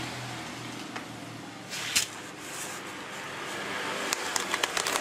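Handling of a parcel wrapped in plastic packing tape: rustling, a sharp crackle about two seconds in, then a quick run of clicks and crackles near the end as a box cutter is set to the wrapping.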